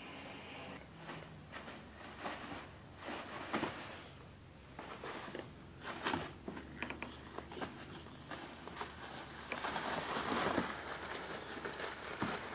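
Kittens pouncing and wrestling in loose paper towels, the paper rustling and crinkling in irregular bursts, with a denser spell of rustling about ten seconds in.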